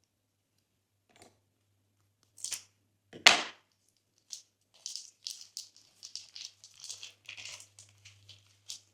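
Glossy slime making a single sharp pop about three seconds in. It is followed by a quick run of small clicky crackles.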